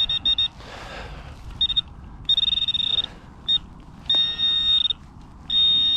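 Garrett AT Pro metal detector sounding a high-pitched target tone in beeps of one steady pitch: a few short chirps, then longer held tones as the coil passes over the targets.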